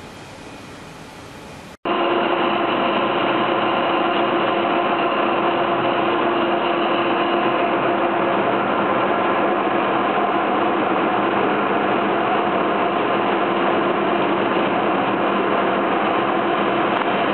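Large vertical turning lathe cutting a big metal workpiece: a steady machining noise with a few steady hum tones through it. It cuts in suddenly about two seconds in, after a faint steady hiss.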